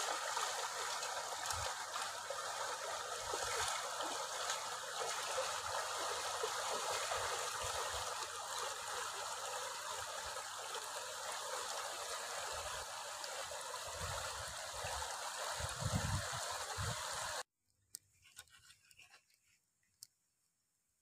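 Shallow stream running over rocks, a steady rush of water, with a few low thumps near its end. The water sound cuts off abruptly about three quarters of the way through, leaving near quiet with a few faint ticks.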